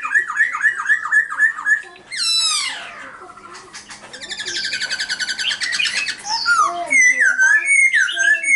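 A caged black-throated laughingthrush singing loudly. It opens with a quick run of short falling notes, about four a second. About two seconds in comes a long whistle sliding steeply down. This is followed by a fast rattling trill, then a string of varied whistled phrases near the end.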